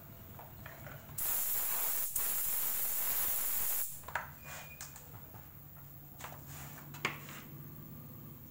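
Compressed-air blow gun blasting air for nearly three seconds, with a momentary break partway through, blowing sanding dust out of a tubeless tyre before the patch is glued. A few light knocks follow.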